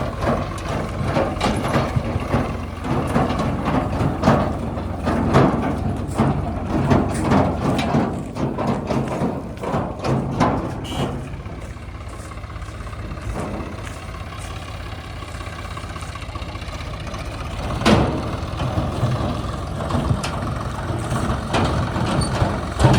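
Diesel engine of a JCB 3DX backhoe loader running steadily under work, with repeated knocks and clanks over the first half. It goes quieter in the middle, and a single loud knock comes near the end.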